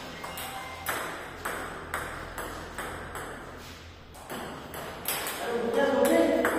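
Table tennis ball bouncing: a run of sharp, ringing clicks about two a second. A voice is heard briefly near the end.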